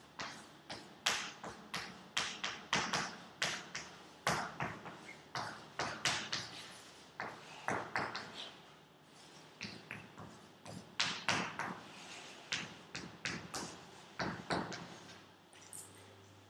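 Chalk writing on a chalkboard: an irregular run of sharp taps and short scratches as the letters are formed, with a short pause about halfway through.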